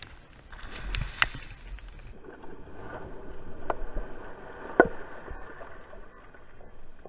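Tiger muskie thrashing at the water's surface beside the boat: splashing builds about half a second in, is heaviest from about two to five seconds, then fades. A few sharp knocks cut through it, the loudest near five seconds in.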